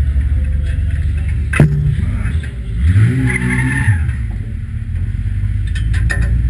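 A 2-litre saloon stockcar's engine running hard, heard from inside the car, with one sharp bang about one and a half seconds in. Engine revs rise and fall around three seconds in as another car comes close, and a few short clicks and rattles come near the end.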